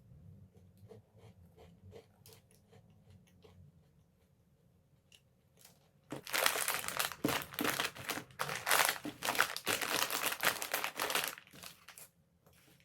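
Faint crunchy clicks of cookies being chewed, then about five seconds of loud crinkling and crackling from about six seconds in, as the plastic snack packet of Chips More cookies is handled and crumpled, stopping near the end.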